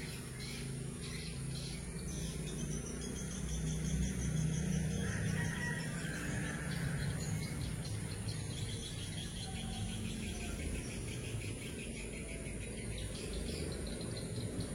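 Insects chirping in fast, pulsed trills over a steady low rumble.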